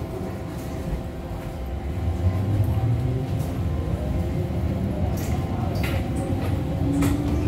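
Electric metro train (MTR M-Train) heard from inside the carriage: a steady running hum with a few knocks, and a traction-motor whine that rises in pitch in the second half as the train picks up speed.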